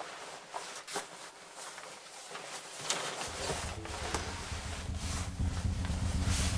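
Rustling and swishing of a padded winter jacket being pulled on, with a few small clicks and knocks. A low steady hum comes in about halfway through and continues.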